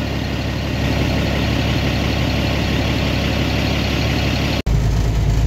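A farm vehicle's engine running steadily. A sudden cut a little before the end switches to a deeper, heavier engine sound.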